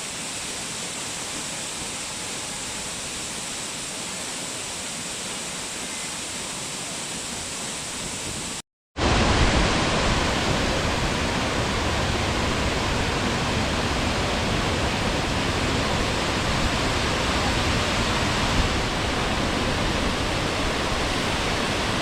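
Steady rushing of a waterfall. About a third of the way in it cuts out for a moment, then comes back louder and fuller, with more low rumble.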